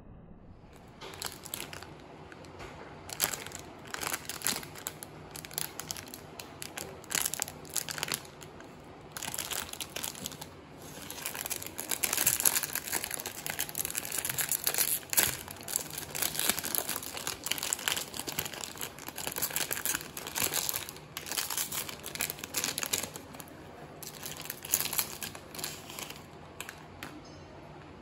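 Plastic ice cream bar wrapper crinkling and tearing as it is pulled open by hand, in uneven bouts of rustling that are thickest and loudest around the middle.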